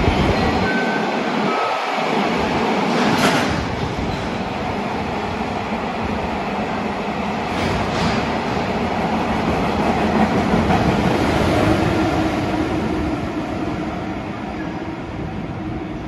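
Freight train running through an underground station platform: a continuous rumble and rattle of wheels on rail, with a sharp clack about three seconds in and another around eight seconds. The sound eases off over the last few seconds as the train draws away.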